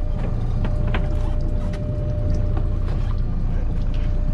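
Boat's engine running steadily with a low rumble and a steady whine, with scattered sharp clicks and knocks over it.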